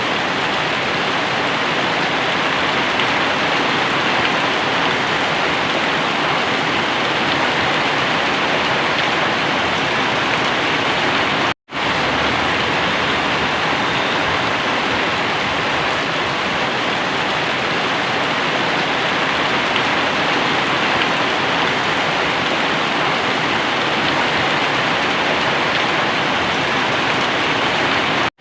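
Very heavy rain pouring down steadily as a dense, even hiss. It cuts out for an instant about twelve seconds in.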